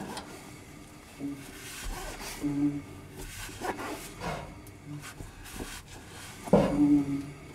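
Rear drum brake shoes on a 1949 Chevy 3100 lightly rubbing the drum as the wheel is spun by hand, giving a short scrape about once a turn, the loudest near the end. The shoes have just been adjusted out to make contact with the drum.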